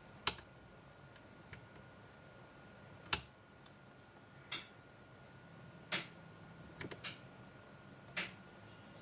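A wall light switch clicking on and off several times, about six sharp clicks at uneven intervals, with two close together in the second half, as the room light is toggled to change the light falling on the LDR. A faint steady high whine runs underneath.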